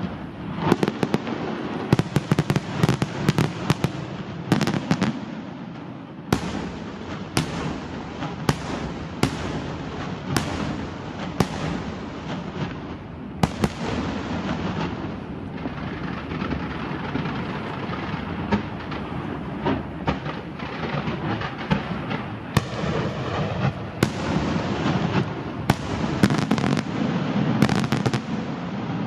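Aerial fireworks display by La Rosa International Fireworks, with shells bursting in sharp bangs over a continuous rumble. It opens with a rapid barrage, settles to single reports about once a second, and thickens into a rapid barrage again near the end.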